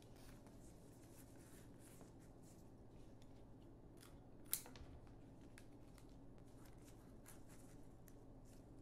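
Florist's scissors snipping a flower stem, with one sharp snip about halfway through. Faint rustling and light clicks of stems and foliage being handled run throughout.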